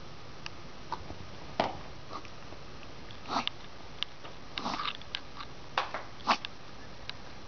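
Dog coughing in a string of short, sharp coughs and snorting breaths, the loudest about six seconds in.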